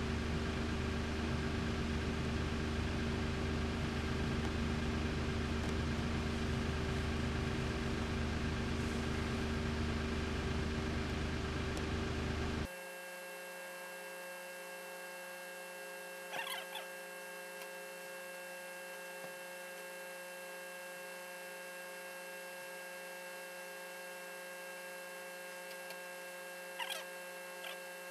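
Steady electrical hum under a hiss, which drops abruptly to a quieter, thinner hum about halfway through. A few brief faint rustles of fabric being handled come in the second half.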